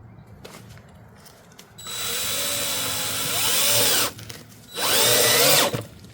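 Cordless drill driving a deck screw through folded greenhouse plastic: two runs of the motor, the first about two seconds long and the second about a second, with the whine rising and falling as the trigger is worked.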